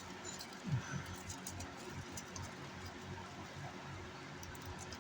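Faint small clicks and handling noises over a steady low hum, with one short low falling sound under a second in.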